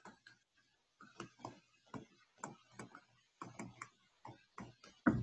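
Stylus tapping and clicking on a tablet screen during handwriting: a string of light, irregular ticks, about three a second.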